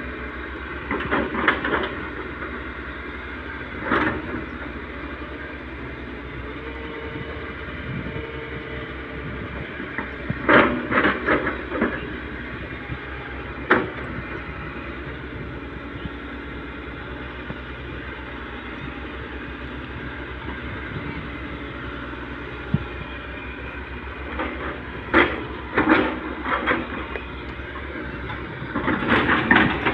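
Tata Hitachi 210 hydraulic excavator's diesel engine running steadily, with several short bursts of clatter every few seconds as the machine works.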